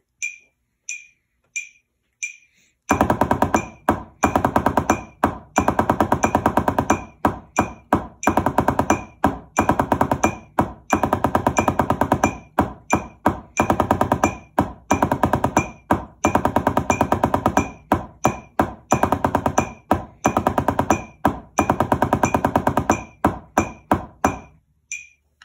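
Drumsticks playing the sixes rudiment on a practice pad against a metronome at 90 beats per minute. A few metronome clicks come first; about three seconds in, fast, even stick strokes start and run in phrases with short breaks. They stop about a second before the end.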